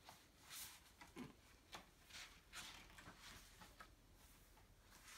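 Near silence: room tone with a few faint, short rustles.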